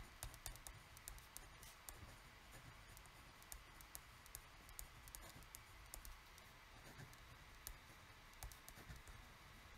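Faint, irregular light clicks and scratches of a pen writing on a pad of squared paper, close to near silence.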